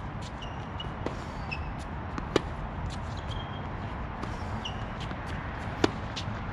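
Tennis rally: a ball struck by rackets and bouncing on a hard court gives a few sharp pops, the loudest about two and a half seconds in and near the end. Short high squeaks come in between.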